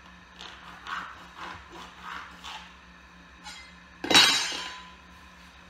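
Several short scraping strokes of a blade scoring a vinyl plank along a square. About four seconds in comes a loud clatter with a brief ring, as the metal square is set down hard on the plywood subfloor.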